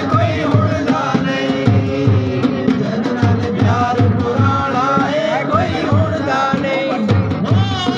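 A man singing into a microphone, with a hand-played dholak barrel drum keeping a steady beat of about two to three strokes a second.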